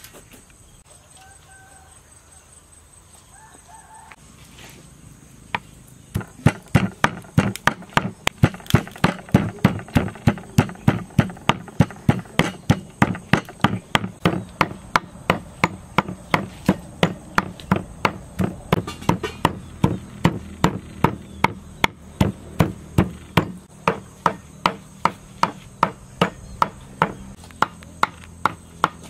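Kitchen knife chopping pork on a wooden chopping board: sharp, even knocks about three a second, starting about five seconds in.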